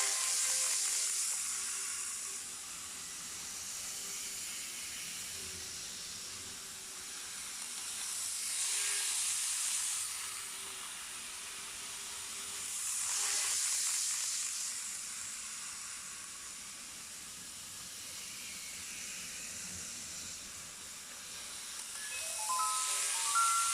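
N-gauge model train running on its track: a steady hiss of wheels and small motor that swells and fades several times as the train passes close by. Near the end a short electronic chime melody begins.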